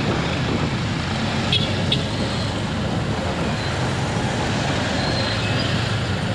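Steady street-traffic noise from a car driving in town, with the hum of motorcycle and vehicle engines running close by.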